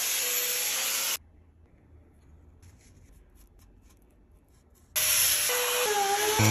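Handheld electric grinder with an abrasive disc sanding alligator juniper wood: a loud, hissing abrasion. It cuts off abruptly about a second in, leaving near silence for almost four seconds, then starts again near the end with its pitch dipping and rising.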